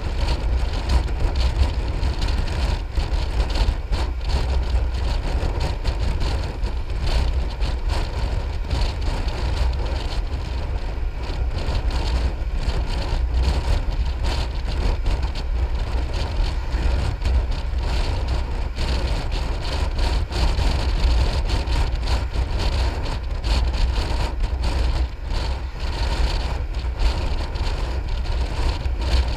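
Riding noise of a Piaggio MP3 500 three-wheeled scooter at road speed: wind rushing over the microphone with a deep, fluttering rumble, mixed with the steady sound of the single-cylinder engine and the tyres on the road.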